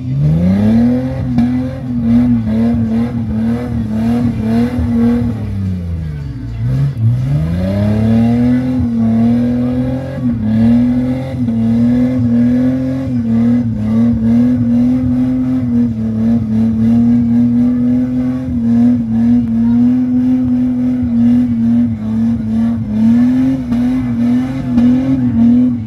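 Jeep engine revved hard and held high, wavering up and down, as it churns through deep mud. About six seconds in the revs drop right off, then climb back up and stay high.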